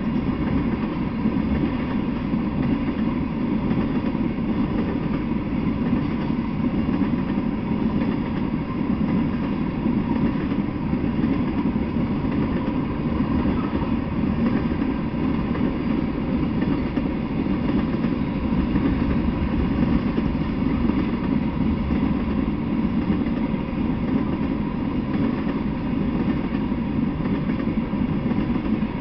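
Freight train of tank cars rolling slowly past: a steady low rumble.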